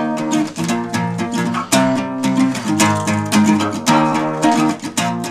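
Acoustic guitar strummed in a quick, even run of chords.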